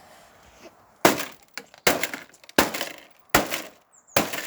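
A television being smashed with repeated blows: five hits about three-quarters of a second apart, each with glass cracking and breaking.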